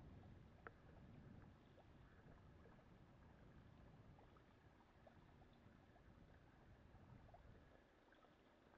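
Faint, muffled wash of bicycle tyres cutting through shallow floodwater, with scattered small splashes and ticks. There is one sharper tick just under a second in.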